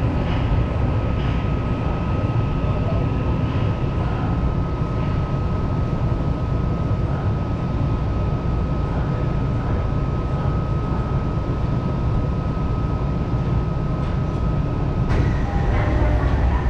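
Tokyo Metro Marunouchi Line subway train running on the rails: a steady low rumble with a constant high tone over it, growing a little louder near the end.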